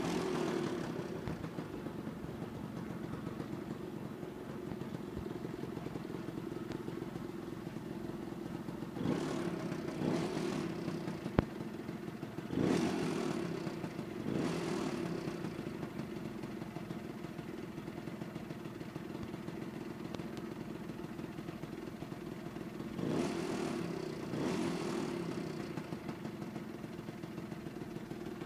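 Lambretta Li Series 2 scooter's two-stroke single-cylinder engine, fitted with a Casa 185 cylinder kit, Dell'Orto PHBL 25 carburettor and Casa big-bore exhaust, dropping to idle as the scooter stops and then idling steadily at standstill. The revs rise briefly a few times, in short throttle blips.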